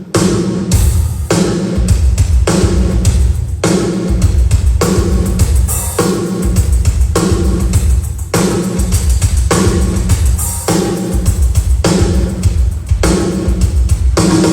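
Drum kit played in a steady groove for a sound check: bass drum, snare and cymbals hit in a regular beat.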